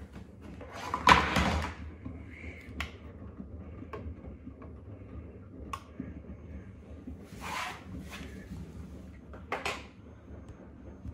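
Washing machine: a short sliding knock like a drawer about a second in, then a steady low hum with a few faint clicks and two brief swishes later on.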